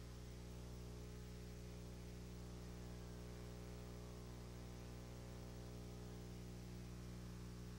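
Steady low electrical hum with a stack of overtones, under a constant hiss: noise of the recording chain, with no sound from the scene itself.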